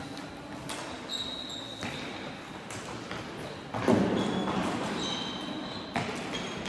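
Floorball play in a large echoing sports hall: sharp clicks of sticks on the ball and boards, short shoe squeaks on the court floor, and players' voices, with a louder burst about four seconds in.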